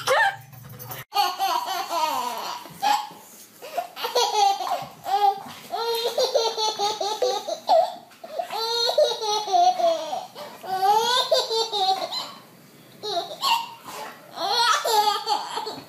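A baby laughing hard: long belly laughs in repeated bursts, with short breaths between them and a brief lull about two-thirds of the way through.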